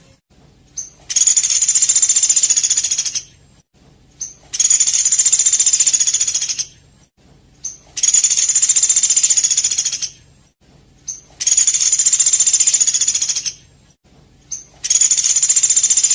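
Recorded songbird song used as a masteran: a short high note, then a fast, rattling, high-pitched trill about two seconds long, repeated five times with about a second's pause between.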